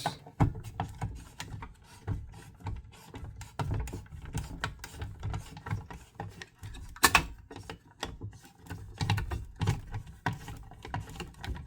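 Irregular clicks and knocks of a fire alarm manual pull station being handled and reset by hand, with a sharper knock about seven seconds in.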